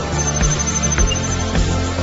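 Background music: an electronic track with a steady beat.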